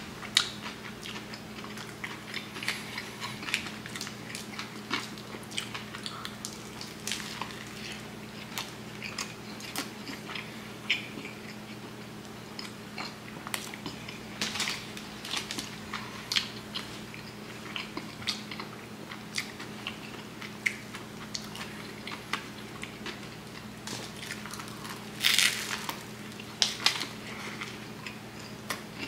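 Close-mouthed chewing and biting of a Subway Philly cheesesteak sandwich: crunchy bites into the crusty bread edge and wet mouth clicks come at irregular moments, with a louder bite near the end. A steady low hum runs underneath.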